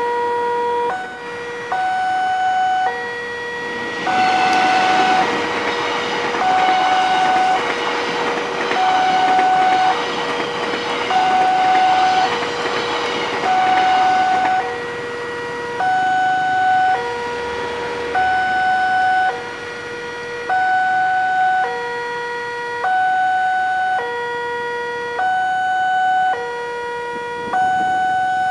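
Railway level-crossing alarm sounding from a horn loudspeaker on the signal post, a two-tone electronic chime switching between a lower and a higher tone about every three-quarters of a second. A passenger train runs past from about four seconds in to about fourteen seconds in, its rushing noise loud under the chime.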